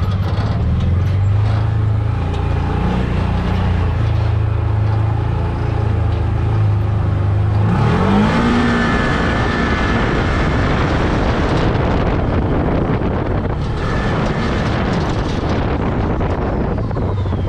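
Side-by-side UTV engine running at a steady low drone, then revving up about eight seconds in and carrying on under power with a loud rushing noise.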